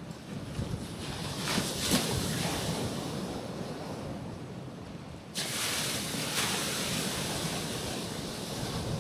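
Gentle sea waves breaking and washing onto a rocky shoreline. One wash swells about a second and a half in, and a second one sets in suddenly, with a hiss, a little past halfway.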